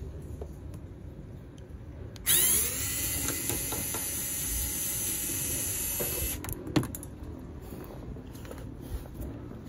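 Cordless electric screwdriver running for about four seconds, starting a couple of seconds in: it spins up quickly to a steady whine as it backs a Phillips screw out of a plastic car bumper. Lighter handling clicks come before and after it.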